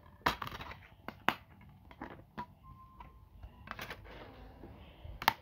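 Handling noise from a plastic DVD case and the phone being moved about: an irregular string of sharp clicks, taps and rustles, loudest just after the start, about a second in, and near the end.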